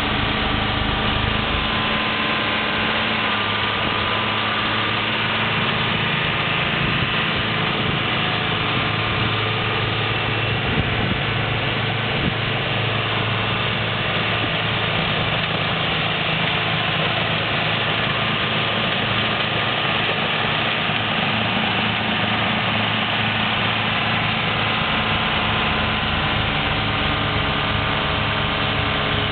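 John Deere 4450 tractor's six-cylinder diesel running steadily while clearing snow with a PTO-driven Red Devil snowblower.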